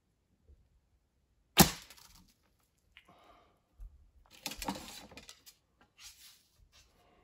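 A recurve bow shot: one sharp crack about a second and a half in as the string is released and the arrow flies. Softer rustling and clattering follow as the bow and arrows are handled.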